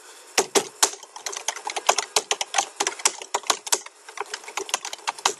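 Typing on a computer keyboard: an irregular, quick run of key clicks.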